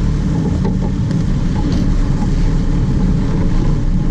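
Sport-fishing boat's engine running steadily, a low drone with no change in pitch.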